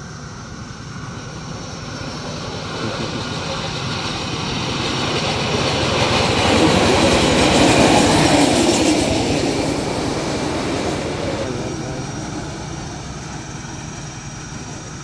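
Small open motorized rail trolley passing along the track, its running sound on the rails growing louder, peaking about eight seconds in, then fading away.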